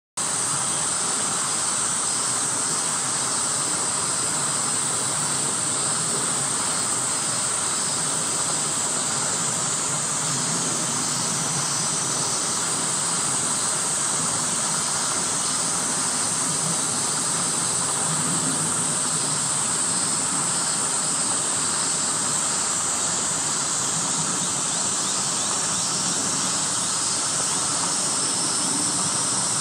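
Summer cicada chorus: a constant, even high-pitched hiss with no breaks.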